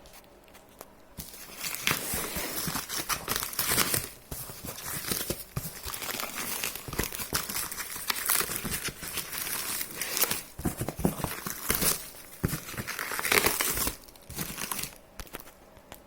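Parcel packaging being torn and pulled open by hand, with crinkling and tearing in irregular spurts and many small sharp crackles, easing off briefly twice.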